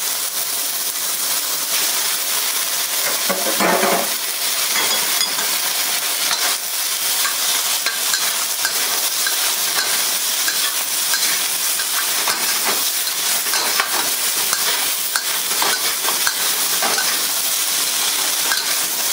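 Chicken and sliced onion sizzling in hot oil in a wok as they are stir-fried, a steady hiss with the metal ladle and spatula clicking and scraping against the wok.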